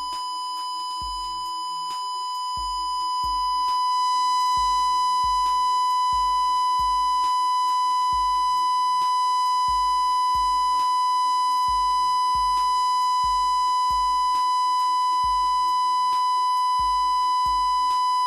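A 1 kHz sine test tone played through a 15-inch loudspeaker driven by a PAM8403 class-D amplifier: a steady high beep with faint overtones, at about 1% distortion. It grows louder about two to four seconds in as the level is turned up, then holds steady. A faint music track with a steady beat plays underneath.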